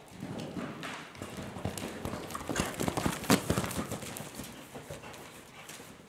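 A horse's hooves beating on the sand footing of an indoor arena at a canter. The hoofbeats grow loudest about three seconds in as the horse passes close by, then fade as it moves away.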